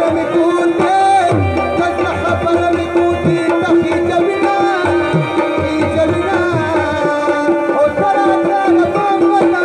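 Live Pashto folk music played through a sound system: tabla drumming under a melody with a steady held drone note.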